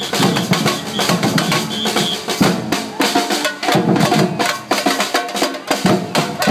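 Live drumming on a drum kit, snare and bass drum beating a fast, busy rhythm.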